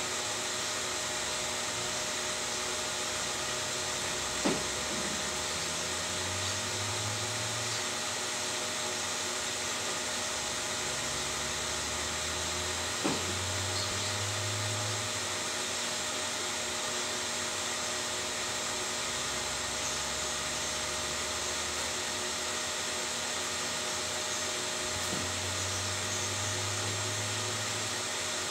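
Steady whooshing background noise with a faint hum, like a fan or air conditioner running, and three light knocks, about 4 seconds in, 13 seconds in and near the end.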